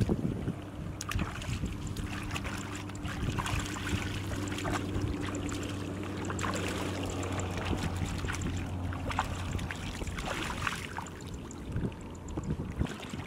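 Water splashing and sloshing, with many short irregular splashes, over a steady low engine hum that weakens about ten seconds in.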